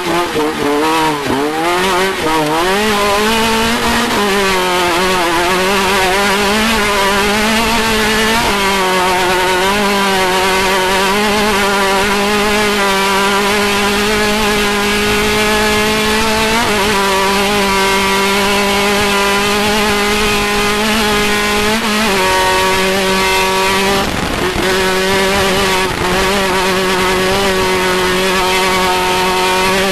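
Off-road race vehicle's engine running hard at high revs. The revs swing up and down for the first few seconds, then hold high and steady with several brief dips.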